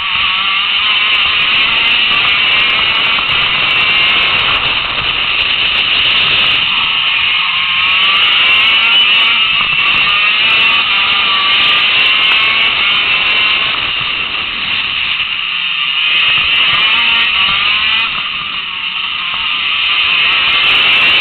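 A KZ2 shifter kart's 125cc two-stroke engine running at high revs on track. Its pitch repeatedly climbs, then drops briefly as it lifts or shifts: about a third of the way in, again near 15 seconds, and once more near the end.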